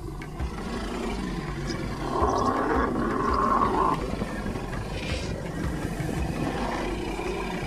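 A wild animal roaring, with a rough, noisy roar that is loudest from about two to four seconds in.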